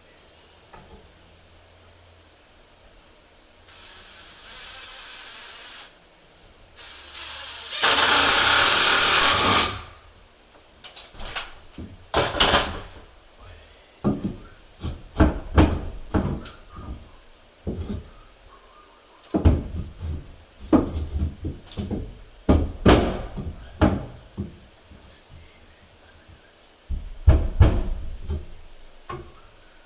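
A power drill runs in two short bursts, the second loud and about two seconds long, typical of driving a screw into a wooden stud. Then come a string of irregular knocks and clunks of parts being handled and tapped.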